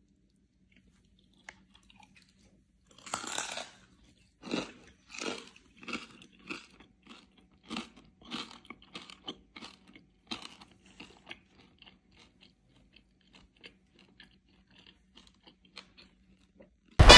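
Someone biting into and chewing Thai crispy pork belly (moo krob) with puffed, crackling skin. A first loud crunch comes about three seconds in, followed by a run of crisp crunches, about one or two a second, that grow fainter and die away.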